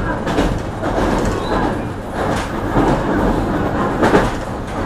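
Interior running noise of a JR Kyushu BEC819 series DENCHA battery-electric train: a steady rumble of wheels on rail and car body, with uneven swells and a few short clacks over rail joints.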